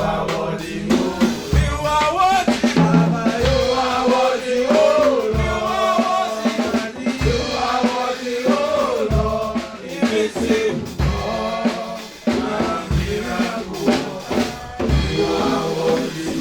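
Church worship music: a band with drum kit and bass drum plays under singing voices.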